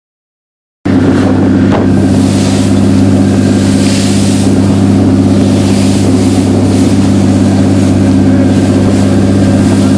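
Boat's engine running steadily under way, a deep even hum with a hiss of wind and water over it. It cuts in abruptly about a second in.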